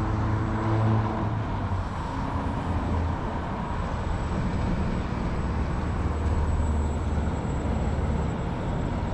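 Low, steady rumble of road traffic, with a city bus driving past and the rumble swelling about halfway through.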